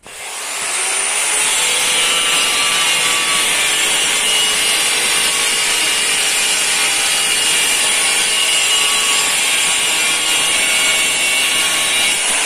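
A power tool motor starts suddenly, spins up within about a second and runs steadily with a high whine.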